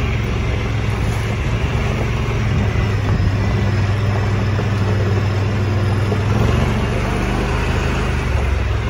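Engine of an open, roll-caged off-road vehicle running steadily as it drives along a dirt road, a loud low hum with road noise over it.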